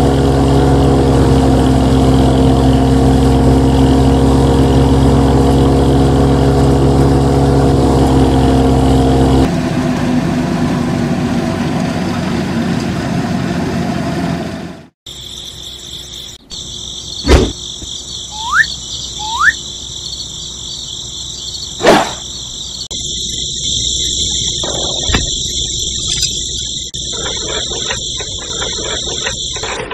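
A miniature wheat thresher model, driven by a small electric motor, runs with a steady hum and a noisy rattle; the hum drops away about a third of the way in. After a sudden cut there is a steady high whine, with a few sharp knocks and two short rising chirps.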